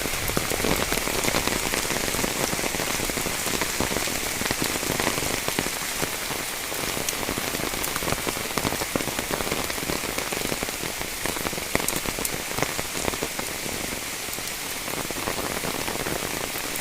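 Heavy rain falling steadily: a dense hiss of rain with many small separate drop impacts pattering through it.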